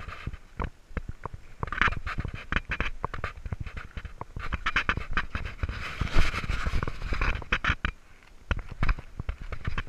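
Irregular scraping, rustling and knocking close to the microphone: handling noise from a body-worn camera as the wearer moves about on rock. The scratchy rustle is densest about six to seven and a half seconds in.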